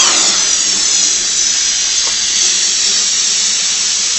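Compressed air rushing out of a homemade air cannon: a loud, steady hiss that starts suddenly.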